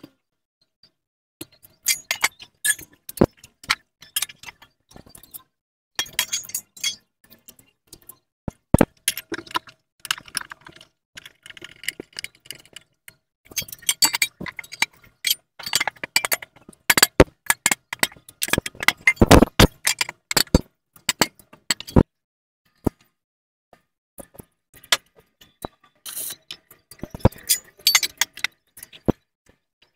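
Irregular clinks, taps and knocks of metal parts and hand tools being handled while a seat base is fitted onto a pit bike frame, busiest and loudest around the middle.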